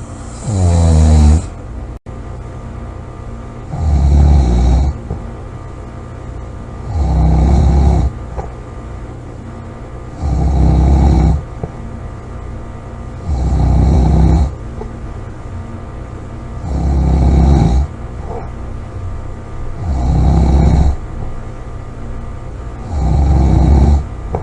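A person snoring loudly in a slow, regular rhythm: eight snores, one about every three seconds, each lasting about a second.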